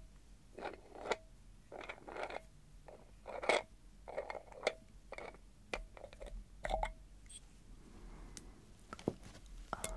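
Long fingernails scratching and tapping on a textured, bead-encrusted rum bottle in short irregular strokes, several leaving a brief ringing note; quieter near the end, with a couple of sharp clicks.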